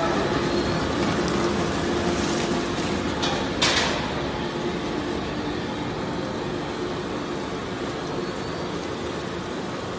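Industrial plastic waste shredder and its feed conveyor running, a steady mechanical din with a constant hum. A short sharp burst of noise cuts through about three and a half seconds in.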